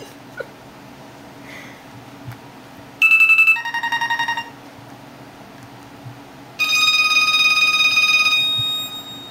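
LG enV2 cell phone playing short stock ringtone previews through its speaker. About three seconds in comes a high electronic beep that drops to a lower warbling tone, about a second and a half in all. From about six and a half seconds a steady electronic tone with bright overtones sounds for about two seconds and fades out.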